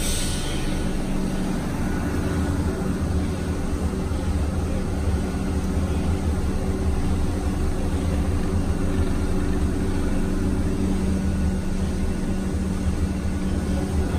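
Steady low machinery hum with a few held low tones inside the cab of 86 class electric locomotive 8606, its equipment running while it stands. A short hiss at the very start.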